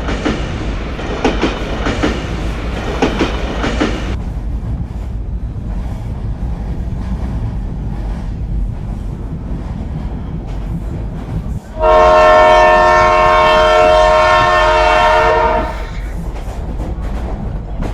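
Indian Railways train running with a steady low rumble, its wheels clacking over rail joints in the first few seconds. About twelve seconds in, a train horn sounds one long blast of about four seconds, a steady multi-note chord that cuts off sharply.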